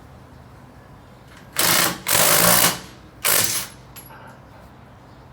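Cordless impact wrench hammering on the wheel's lug nuts in three short bursts, the middle one longest.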